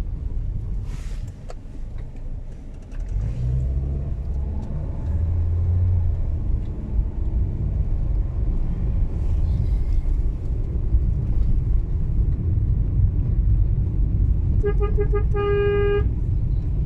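Moving car's engine and road rumble heard from inside the cabin, a low steady drone. Near the end a vehicle horn beeps three times in quick succession and then once longer.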